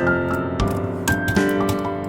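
Gentle piano music with held chords, new notes struck every half second or so, and a scattering of light clicks over it.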